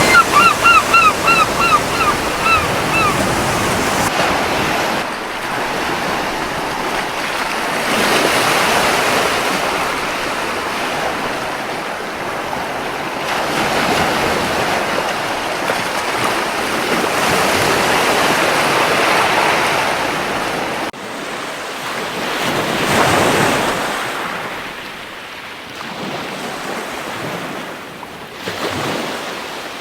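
Ocean surf washing onto a beach, swelling and ebbing every few seconds. In the first three seconds a gull calls a quick series of about eight short notes.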